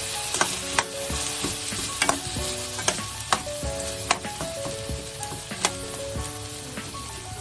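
Carrot and potato pieces sizzling in olive oil in a nonstick frying pan as they are stirred, with a steady hiss and the utensil clicking and scraping against the pan every second or so.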